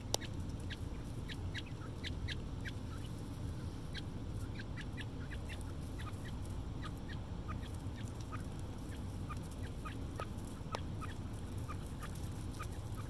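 A brood of young quail peeping over and over, short high calls that slide downward in pitch, a few each second from several birds at once. A steady low hum runs underneath.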